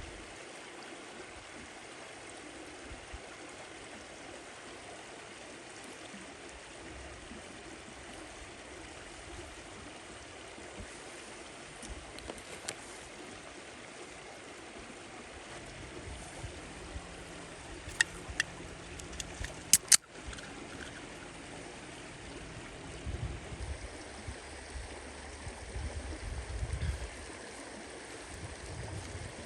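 Steady rush of running water, like a stream. A few sharp clicks come about two-thirds of the way through, and low rumbling comes near the end.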